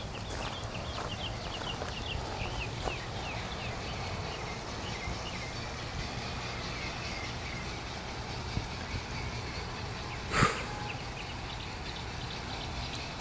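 Outdoor ambience: birds chirping in the first few seconds over a steady low hum, with one sharp knock about ten seconds in.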